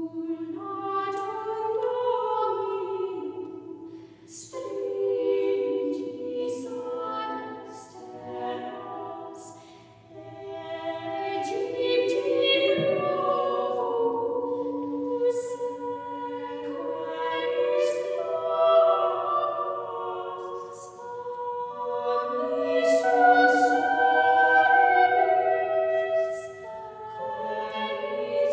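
A three-part upper-voice vocal ensemble of two sopranos and an alto, singing a Latin motet unaccompanied. The singing comes in phrases with short breaks between them.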